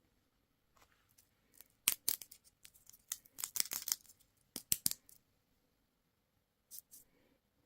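Plastic candy or toy packaging being opened by hand: crackling wrapper and sharp clicks, in a dense flurry from about two to five seconds in, then two short crackles near the end.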